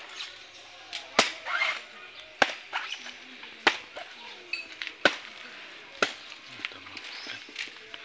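Chopping with a blade: five sharp strikes, roughly one every second and a quarter, with a few lighter knocks between them.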